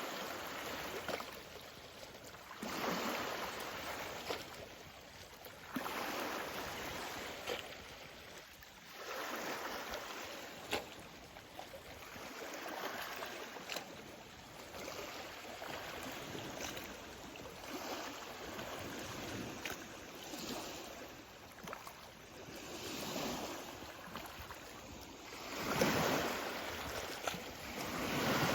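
Small lake waves lapping against the shore, the wash swelling and falling away every few seconds.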